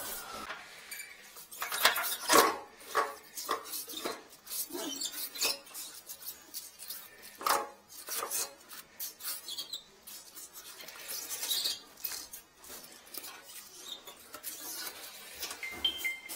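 Clicks, knocks and rattles of a plumber handling a toilet inspection camera kit and its push cable, at an uneven pace. The wet-dry vacuum is winding down at the start, and a brief two-tone beep sounds near the end.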